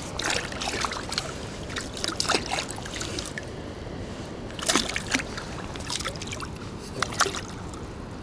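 Hooked perch splashing and flapping at the water's surface while a hand reaches into the water and grabs it: irregular short splashes in several bunches, the loudest about five seconds in.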